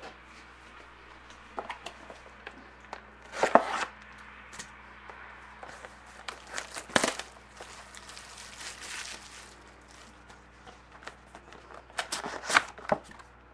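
Plastic shrink-wrap being torn and crinkled off a sealed box of trading cards, with handling clicks and taps on the cardboard. Two sharp rips stand out about three and a half and seven seconds in, with a longer crinkling between them and a quick run of crackles and taps near the end.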